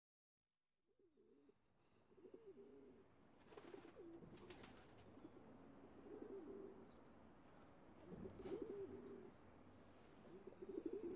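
Pigeons cooing faintly and repeatedly; the sound fades in about a second in.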